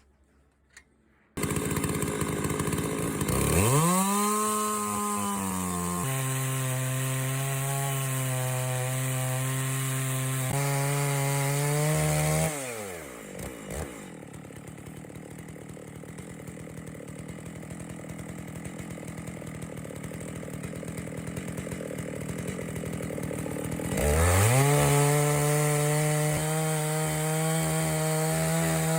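Chainsaw on an Alaska chainsaw mill with a long ripping bar, revving up and running flat out through an oak log, its pitch stepping down about six seconds in. It drops back to idle about halfway through, then revs up again near the end.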